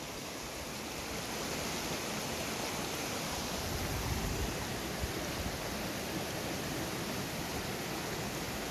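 Small mountain river rushing steadily over rocks, with a few low bumps near the middle.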